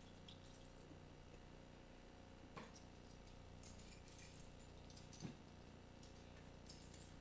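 Near silence: a faint steady hum with a few faint clicks.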